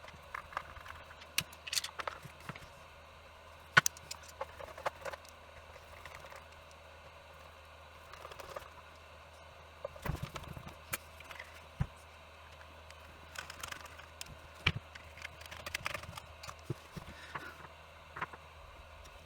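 Irregular clicks, taps and light knocks of small parts and plastic housing pieces being handled and fitted while a cordless SDS hammer drill is put back together, the sharpest click about four seconds in.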